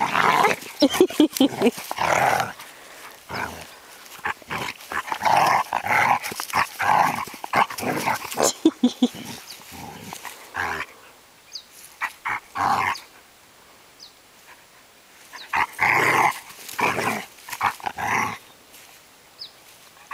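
Two dogs, a black puppy and a white adult dog, play-fighting: play growling comes in irregular bursts, with a quieter lull of a couple of seconds about two-thirds of the way in.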